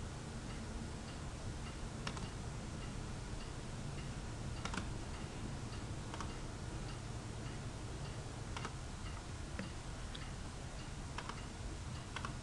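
Quiet room tone, a low hum and hiss, with faint steady ticking and a few scattered soft clicks.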